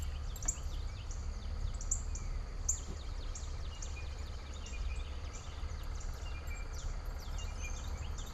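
Wild birds chirping and calling, many short falling chirps one after another, over a steady low rumble.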